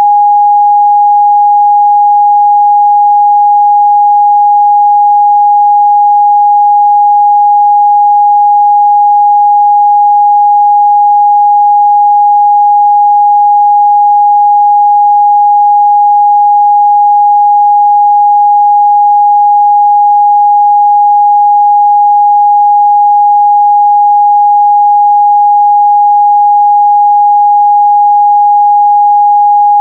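A pure 824 Hz sine-wave test tone, held steady and loud at one pitch, with nothing else.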